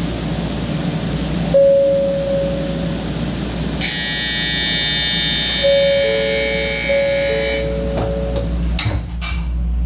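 Shinkansen platform departure signal: a ringing electronic bell starts about four seconds in and stops a little before eight seconds, over two-tone chime beeps. A single held tone sounds about a second and a half in, and a few sharp knocks come near the end.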